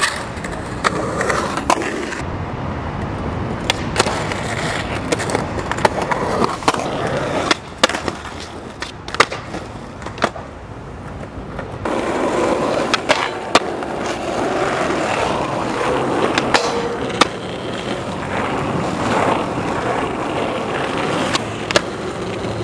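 Skateboard wheels rolling over concrete and rough asphalt, with sharp clacks of the board striking the ground scattered throughout as tricks are popped and landed. The rolling is quieter for a few seconds in the middle.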